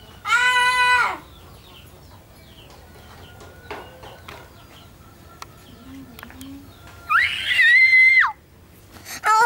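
A child's voice calling out in two long held notes, each about a second long: one just after the start, and a higher one about seven seconds in that rises and then drops away.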